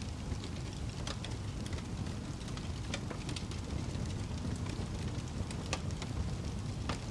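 Wood fire burning in a fireplace: a steady low rumble and hiss of flames, with frequent sharp crackles and pops.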